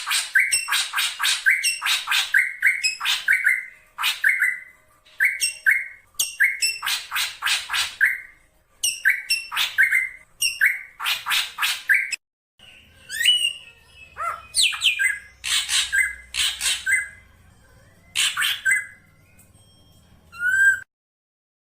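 Black drongo calling: short, loud phrases of rapid harsh notes, each ending on a lower clipped note, repeated about once a second. About twelve seconds in the phrases give way to a more varied run of whistles and chatter, ending in a quick rising trill.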